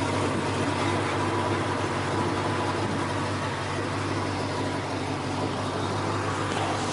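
Car engine running steadily at idle, an even low hum with no change in speed.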